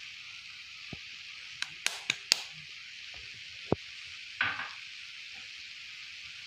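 Soya keema sizzling steadily in a hot pan over a high gas flame. A few sharp clicks and knocks come about two seconds in and again near four seconds.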